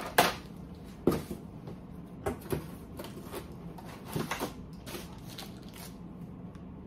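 Hard plastic CGC comic slabs and their packaging being handled while rummaging in a shipping box: a series of sharp knocks and rustles, the loudest two within the first second or so.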